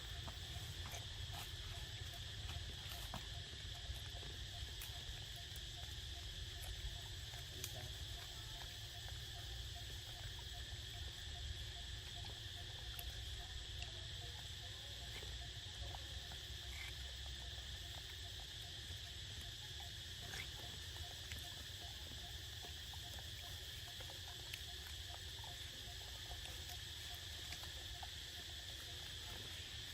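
Insects chirring in a steady, continuous high-pitched drone, over a low rumble and a few faint scattered clicks.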